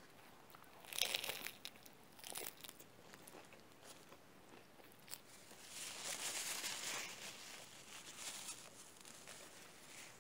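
Close-miked biting into a burger with crisp lettuce, then chewing. There is a sharp crunch about a second in, another a little later, and a longer stretch of crunchy chewing past the middle.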